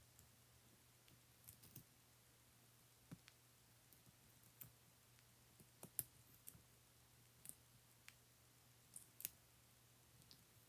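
Baby Sulcata tortoises biting and tearing crisp leafy greens: sparse, irregular sharp little crunching clicks, the loudest about six and nine seconds in, over a faint steady low hum.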